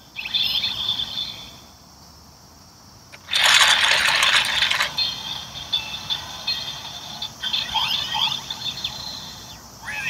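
Bandai DX Build Driver toy belt, its crank lever turned with a loud ratcheting rattle that starts about three seconds in and lasts about a second and a half, amid the driver's electronic transformation sound effects.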